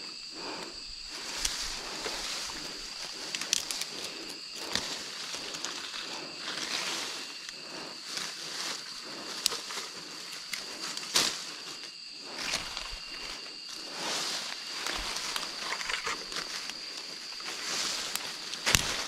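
Leafy tree branches rustling and knocking as they are grabbed and pulled by hand, in irregular swishes and sharp clicks. Underneath, a steady high-pitched insect drone.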